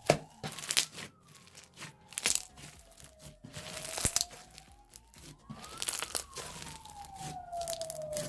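Floam slime full of polystyrene beads being squished and kneaded by hand, giving irregular crackles and pops, the loudest just at the start. Behind it a siren wails slowly, its pitch falling, rising and falling again.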